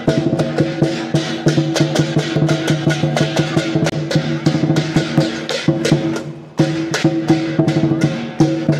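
Chinese lion dance percussion, a drum and cymbals struck in a fast, steady rhythm over a steady ringing tone, with a short break about six and a half seconds in.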